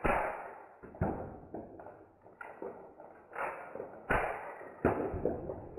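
A string of sharp knocks and clatters, each fading over about half a second: small 3D-printed plastic discs fired from a disc shooter, hitting standing playing cards and dropping onto a wooden table, with the audio slowed down for slow motion.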